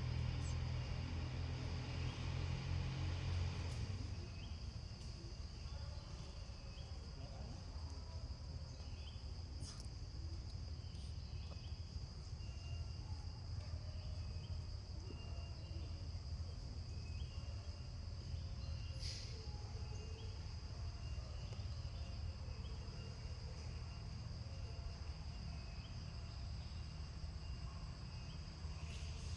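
Steady high-pitched drone of insects, such as crickets or cicadas, with short repeated chirps over a low background rumble.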